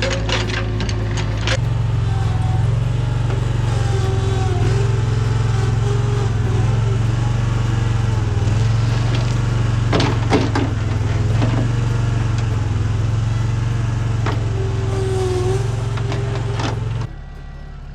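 Engine of a small earthmoving machine running steadily under load, with a wavering whine above the drone. There are a few sharp knocks near the start and a pair about ten seconds in. The engine sound cuts off suddenly shortly before the end.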